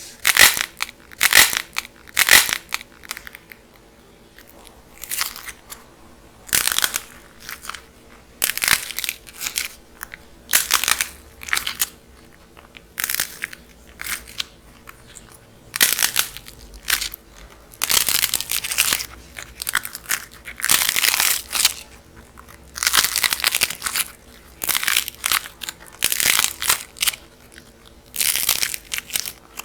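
Dried clay cracking and crunching as it is squeezed and broken apart, in a long run of irregular crackly crunches, some short and some drawn out over a second or so.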